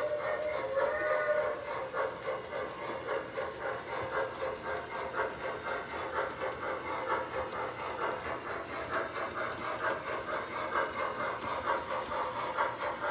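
O-scale model steam locomotive's sound system chuffing steadily, a few beats a second, as the engine pulls a freight train along the layout, with the tail of its whistle dying away at the very start.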